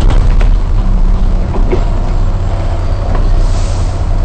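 Non-air-conditioned double-decker bus driving in heavy rain: a steady deep engine rumble under an even hiss of rain and wet road, with a brief high hiss near the end.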